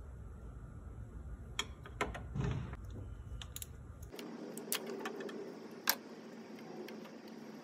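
Scattered small metallic clicks and knocks as a VVT solenoid is wiggled and pried out of its bore in a Subaru engine, with the sharpest click about six seconds in. A low background rumble drops out about four seconds in.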